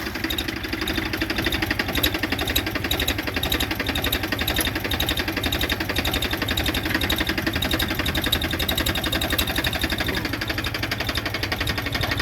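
Powertrac Euro 45 Plus 4WD tractor's diesel engine idling steadily just after starting, with a fast, even chug. Over it runs a thin high whistle from the turbocharger.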